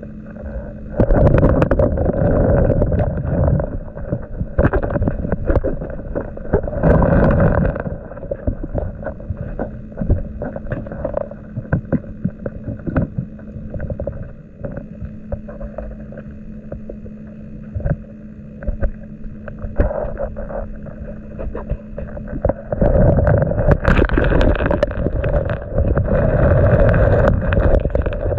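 Muffled rushing and rumbling of river current heard underwater through a submerged GoPro's housing, dotted with many small clicks and knocks. It swells louder about a second in, again around seven seconds in, and stays loud over the last five seconds.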